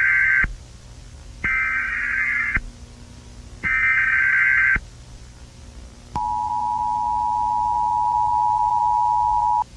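Emergency Alert System header tones: the end of one data burst, then two more about a second each with short gaps between them. After a pause comes the steady two-tone attention signal, held for about three and a half seconds and stopping sharply.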